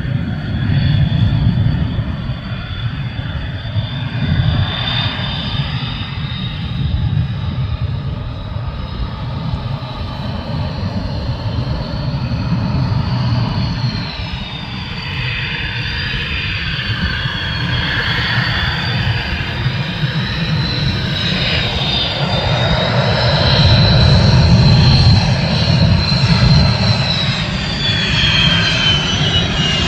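Spirit of Australia 2 jet hydroplane's turbojet engine running at speed: a steady high whine over a deep rumble. The sound grows louder toward the end and the whine drops in pitch near the end as the boat passes.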